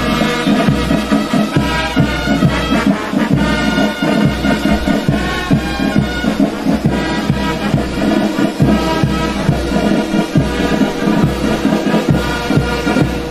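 Brass band playing a march over a steady drum beat.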